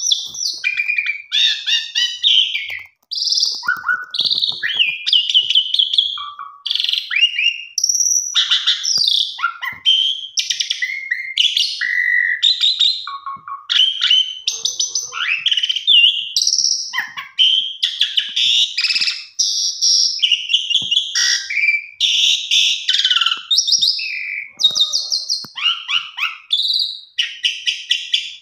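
Caged pied starling (jalak suren) singing nonstop: a rapid, ever-changing string of loud whistles, rising and falling slurs and rattling chatter, with hardly a pause. This is the vigorous 'gacor' song used as a pancingan recording to set silent jalak suren singing.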